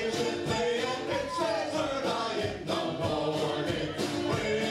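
Live folk band playing: several voices singing together over acoustic guitars, a mandolin and a steady drum beat.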